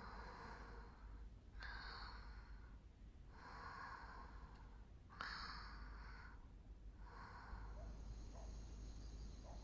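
A sleeping woman breathing slowly and audibly: five soft rushes of air, one about every second and a half. Near the end they give way to a faint, steady high whine.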